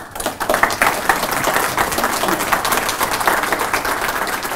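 Audience applauding, a roomful of people clapping steadily, starting at once and beginning to fade near the end.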